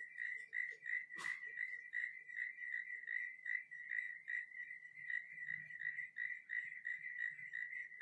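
Crickets chirping in a steady rhythm, a high pulsing trill repeating several times a second. There is a short sharp click about a second in.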